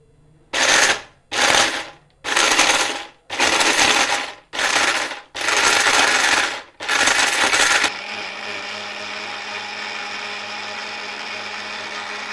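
Orpat 1200-watt mixer grinder with stainless steel blades grinding whole dried turmeric. It is pulsed in seven short loud bursts, then runs steadily and more quietly for about four seconds with an even hum, stopping near the end, as the hard turmeric pieces are ground to powder.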